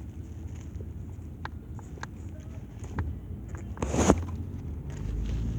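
Silicone Pop-It fidget toy bubbles being pressed, giving scattered soft single pops, over the steady low rumble of a moving car. A louder, brief sound comes about four seconds in.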